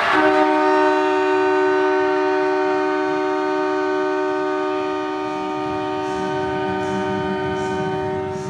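Melfort Mustangs junior hockey goal horn sounding one long steady blast, several notes held together as a chord, signalling a home-team goal.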